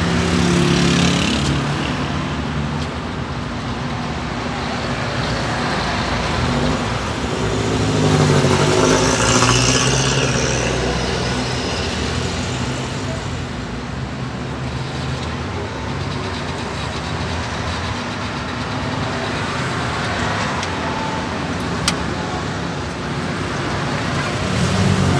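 Street traffic: cars and other road vehicles running by in a steady background drone, swelling louder about eight seconds in. A single sharp click sounds near the end.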